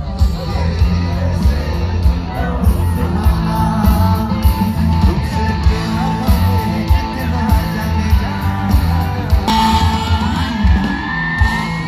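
Loud Hindi song, singing over a heavy bass beat, with yells and shouts from the audience.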